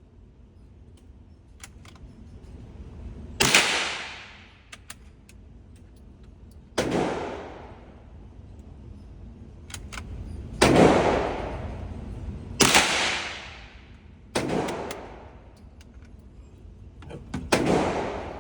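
Six .22LR rifle shots fired from a bolt-action rifle, a few seconds apart, each followed by an echo that fades over about a second. Faint clicks are heard between the shots.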